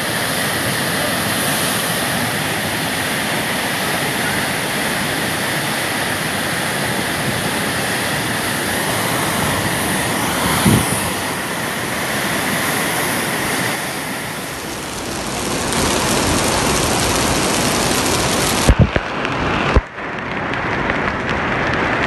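Steady rushing noise of a fast, muddy flash-flood torrent. The sound shifts about two-thirds of the way through, and a couple of sharp knocks come near the end.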